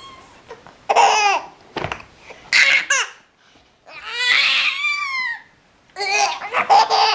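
Baby belly-laughing in several separate bursts with short gaps between them; the longest burst comes just past the middle.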